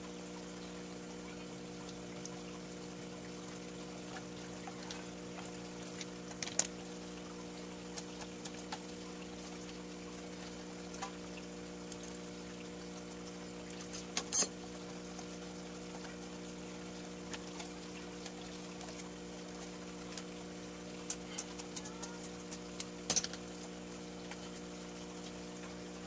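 A steady low hum runs throughout, with scattered light clicks and knocks as a cut plastic bottle and snails are handled; the sharpest knocks come about six, fourteen and twenty-three seconds in.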